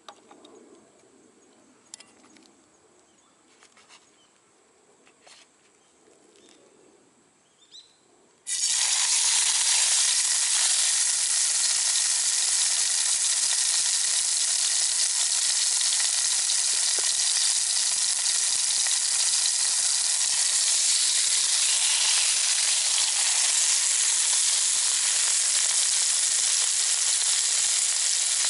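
Near quiet with a few faint clicks from the heating pan, then, about eight and a half seconds in, beef steak hits hot oil in a Trangia Storm Cooker frying pan and sets up a sudden, loud sizzle that stays steady.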